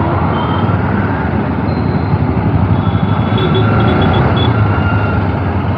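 Riding noise from a BMW G 310 motorcycle in city traffic: wind rushing over the microphone mixed with the single-cylinder engine running steadily, and other vehicles around it.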